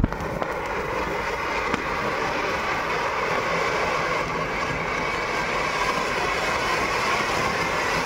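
Cock Brand Rang Barat flower pot, a ground fountain firework, burning and spraying a tall column of sparks with a steady rushing hiss.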